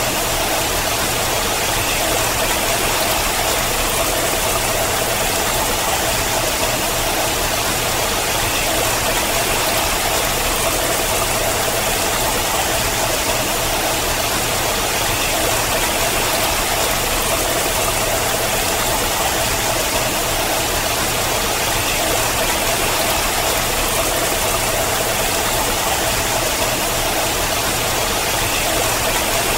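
Water falling down a rock face and splashing: a steady, even rush with no change.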